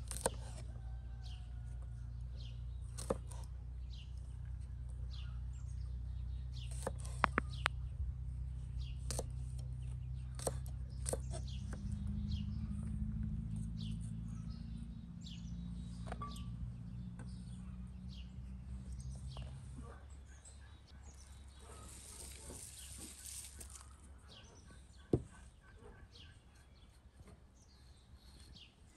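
Scattered sharp taps of a chef's knife chopping garlic cloves on a wooden log cutting board, while small birds chirp all around. A low droning hum sits underneath and fades out about two-thirds of the way through.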